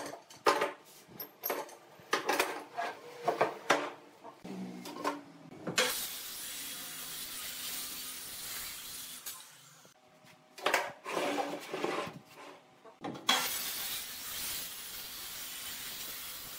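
A run of sharp knocks and clinks of metal pipe clamps and wood being handled, then a handheld circular saw cutting across a wooden tabletop: two cuts of steady saw noise of about four seconds each, with more knocks between them.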